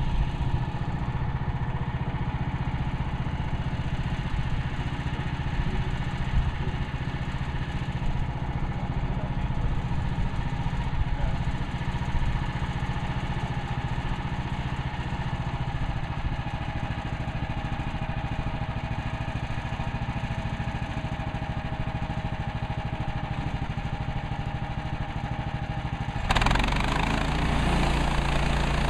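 Gas engine of a Woodland Mills HM130MAX portable bandsaw sawmill running steadily. Near the end the sound jumps suddenly louder and harsher.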